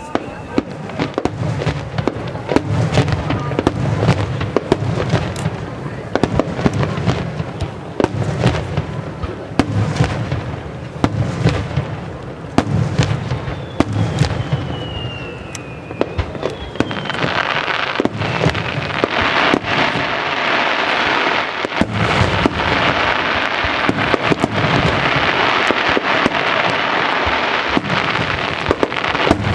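Starmine fireworks barrage: many aerial shells bursting in quick succession, with a whistle falling in pitch about halfway through. From a little past halfway the bursts merge into a dense, continuous crackle.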